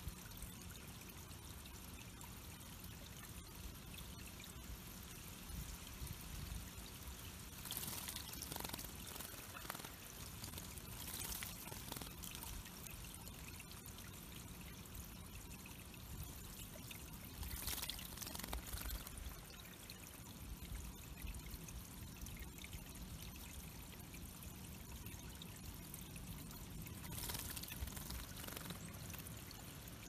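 Water trickling steadily through a small backyard pond's rock stream, with short splashes now and then, several times, from a white-throated sparrow bathing in the shallows.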